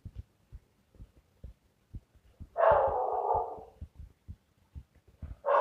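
Ballpoint pen writing on notebook paper: many short, irregular low taps and ticks as the strokes are made. About two and a half seconds in, a louder noisy sound lasts about a second, and two more like it come at the very end.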